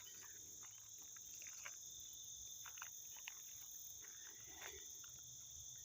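Faint, steady high-pitched chorus of insects such as crickets, with a few soft scuffs and ticks.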